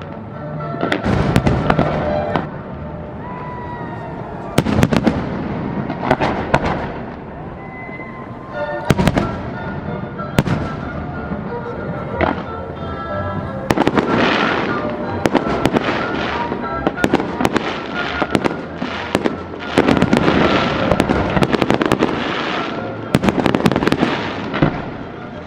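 Fireworks display: repeated sharp bangs and crackling bursts, coming thick and fast through the second half.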